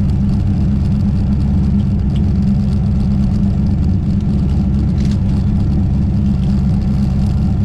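Twin-turbo 427 cubic inch Dart LS V8 idling steadily, heard from inside the car's stripped, roll-caged cabin.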